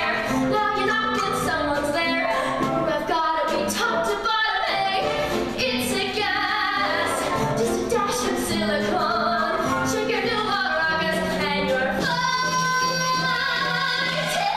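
A woman singing a Broadway show tune with a live pit band behind her, in a big hall; the notes are held longer toward the end, with one long held note near the close.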